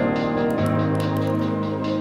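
Background music of sustained chords, with a chord change about half a second in.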